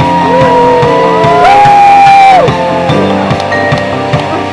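Music: long, sustained lead melody notes that bend in pitch, over a steady beat.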